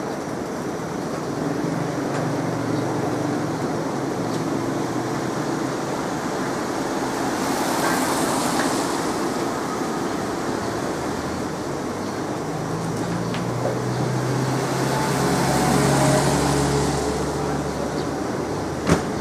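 Road traffic: vehicles driving past with engines running, two louder passes about eight seconds apart. A single sharp click sounds near the end.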